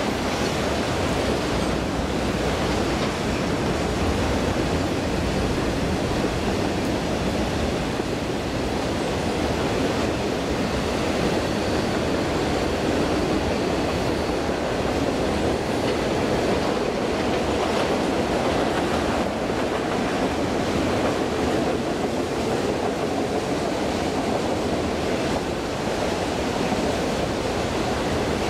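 Autorack freight cars rolling past on a curve: a steady, continuous rumble of steel wheels on rail, with a faint high squeal for a few seconds midway.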